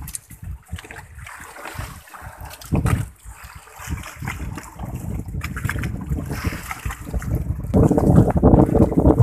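Wind buffeting the microphone over sea and water sounds aboard a small boat, louder near the end.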